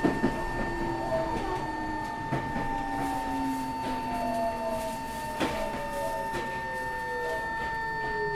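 Tokyo Metro 03 series armature-chopper commuter train heard from inside the car while running. Its motor whine falls slowly in pitch as the train slows, with a steady high whine over it and a few knocks from the wheels on the track.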